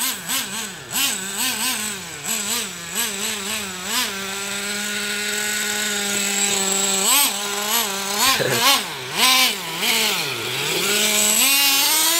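Small nitro-fuelled engine of a radio-controlled monster truck buzzing as the throttle is blipped, its pitch jumping up and down rapidly, holding steady for a few seconds mid-way, then dropping and climbing again in longer swings.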